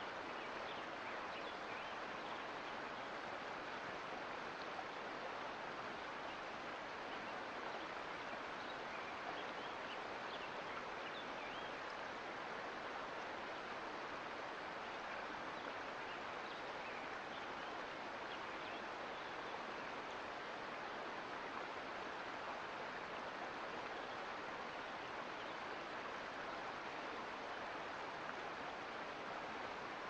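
Mountain creek running steadily, an even rush of flowing water.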